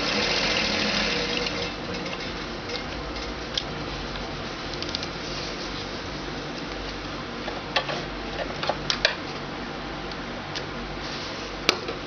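Electric sewing machine running, stitching a seam through fabric: louder for the first second or two, then steadier and lower, with a few sharp clicks in the later seconds.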